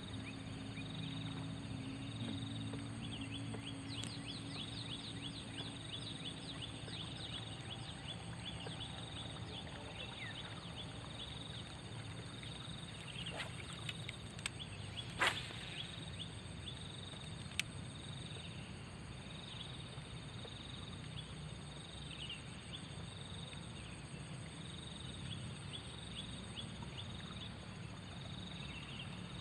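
Outdoor wild-animal chorus: a steady high drone and a call pulsing about once a second, with many short falling chirps throughout. A single sharp click comes about halfway through.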